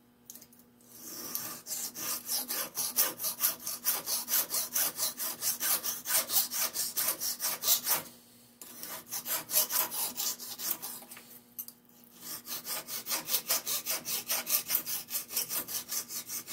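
Hand file rasping back and forth on a metal part in quick, even strokes, about four a second, in three runs with short pauses about 8 and 11.5 seconds in, taking material off.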